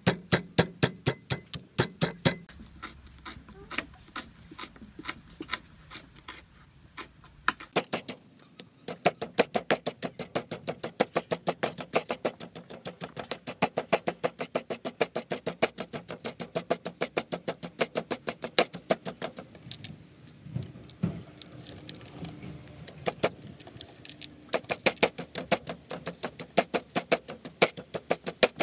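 Stone pestle pounding ingredients into a paste in a heavy stone mortar: rapid, even strikes of stone on stone, about five a second, with a couple of slower, sparser stretches.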